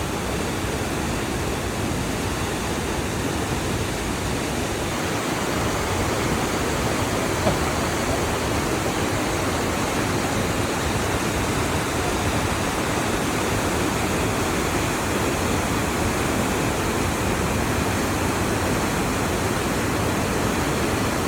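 Steady, unbroken rush of a waterfall, with one brief click about seven and a half seconds in.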